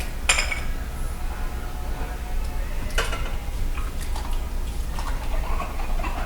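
Dishes and cutlery clinking now and then during hand-washing, with water dripping and splashing as they are washed without a tap.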